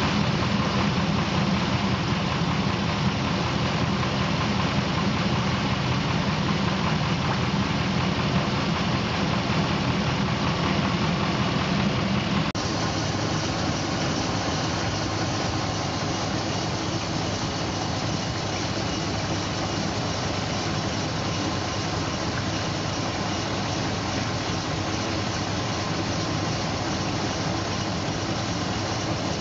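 Dodge 4.7 L V8 engine idling steadily, warming up so that coolant is drawn through the freshly refilled cooling system. The sound changes abruptly about twelve seconds in, its low part dropping away.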